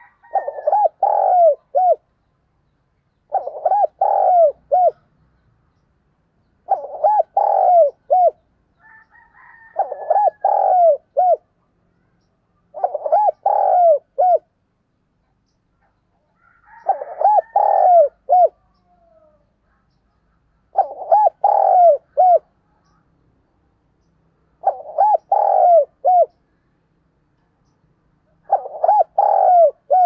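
Spotted dove cooing its calling song: about nine phrases of several short, hollow coos, each phrase about a second and a half long and repeating every three and a half to four seconds. It is a caged decoy dove calling to draw in wild doves.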